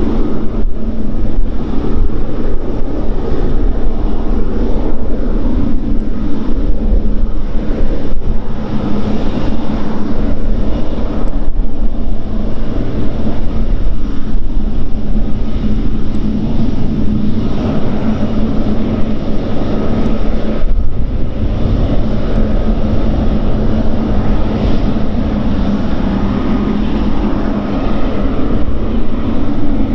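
Two GE90-110B1L turbofan engines of a Boeing 777F freighter running at taxi power as the aircraft taxis. The sound is a steady, loud jet noise with a faint, even whine.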